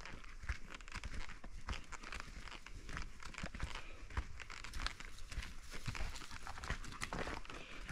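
Footsteps crunching on loose dirt and dry pine needles of a freshly roughed-in forest trail, a steady patter of small irregular crunches while walking.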